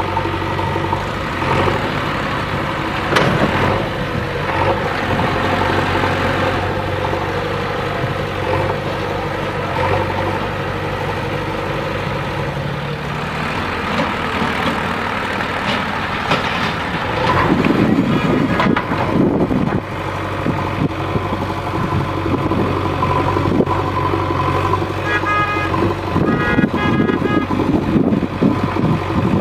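Diesel engine of a JCB 3DX backhoe loader running steadily under work, with a louder rough stretch about two-thirds of the way through. Near the end come several rapid series of short, high beeps.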